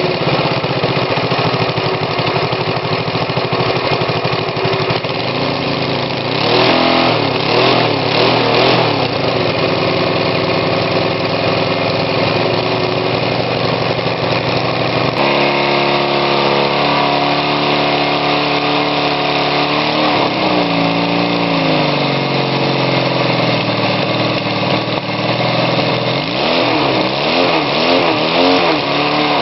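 Homemade two-cylinder stacker engine built from Briggs & Stratton lawnmower engines, running and being revved up and down several times. The engine note changes abruptly about halfway through.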